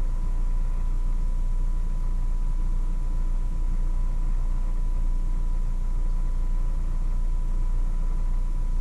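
Steady low hum with a thin high-pitched tone running through it, unchanging throughout.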